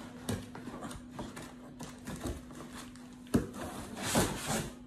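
Cardboard box and white foam packing being handled as a laptop is pulled out: scattered light taps and creaks, a sharp knock about three and a half seconds in, then a brief scraping rustle of cardboard and foam.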